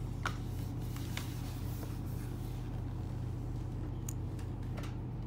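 A few light clicks and taps of small plastic toy figures being handled and set down on a tabletop, over a steady low hum.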